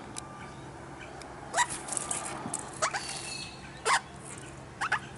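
Australian king parrot giving short, sharp calls, about four of them spaced roughly a second apart, each quickly rising in pitch, over a faint steady hum.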